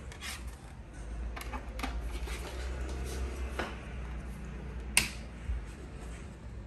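Handling noise from a plastic Huawei B612 router and its power cable: scattered light clicks and knocks, with one sharp click about five seconds in, over a steady low hum.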